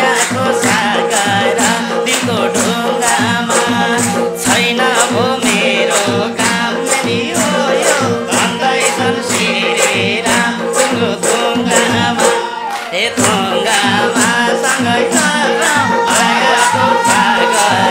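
Nepali lok dohori folk band music: a hand drum keeps a steady beat of about three strokes a second under sustained drone notes and a wavering melody line.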